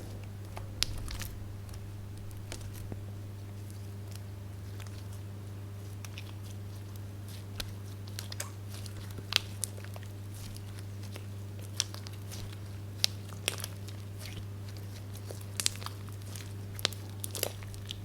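Slime being squished and worked by hand, giving scattered sharp crackling pops over a steady low hum.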